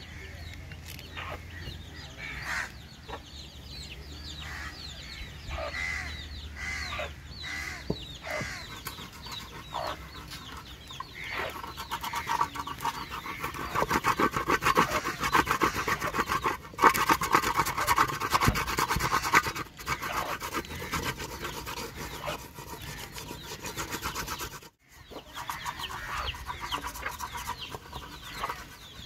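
Chickens clucking, with many short calls that rise and fall in pitch. From about twelve to twenty seconds in, a louder, fast, rhythmic rasping sound rises over them, and the sound drops out for a moment near the end.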